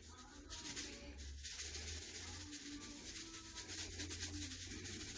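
Seasoning shaken from a plastic shaker into a cooking pot: a dense rattling hiss of grains in quick shakes, starting about half a second in.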